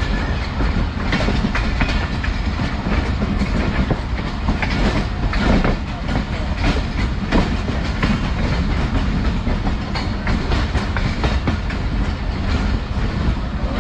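Pakistan Express passenger train running on the rails: a steady rumble with a dense clickety-clack of wheels over the track.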